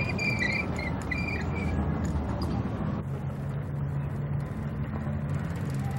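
Bicycles rolling over a brick street, their tyres rumbling steadily. There are a few short high squeals in the first two seconds, and a steady low hum joins about halfway through.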